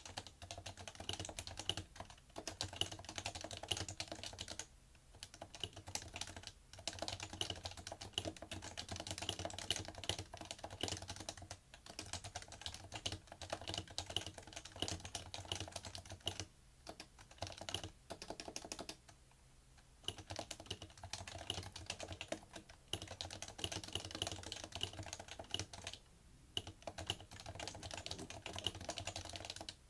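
Continuous typing on a PFU Happy Hacking Keyboard Professional2 with Topre electrostatic capacitive switches: rapid streams of keystroke clacks, stopping briefly a few times.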